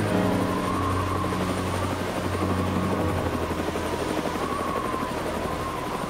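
Helicopter rotor chopping rapidly and evenly as the helicopter flies, with the engine's steady hum underneath.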